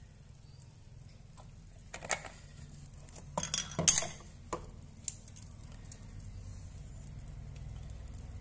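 A few sharp clinks and knocks of kitchenware against a wok: one about two seconds in, a louder cluster around four seconds, then a couple of lighter taps. A low steady hum runs beneath.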